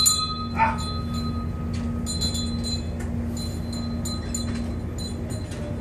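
Steady low drone of a ship's machinery heard inside the hull, with scattered light clicks and rattles and a short squeak about half a second in.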